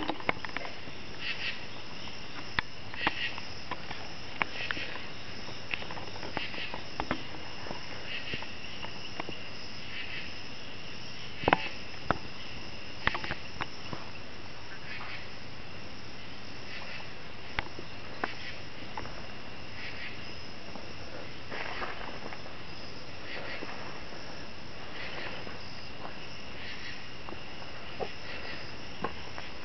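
Insects, likely crickets, chirping in a steady chorus that swells every second or two, with a few sharp clicks scattered through it, the loudest about eleven seconds in.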